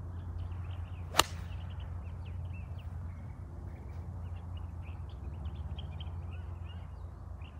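A golf club striking a golf ball once, a single sharp crack about a second in, on a full approach swing off a dry fairway lie.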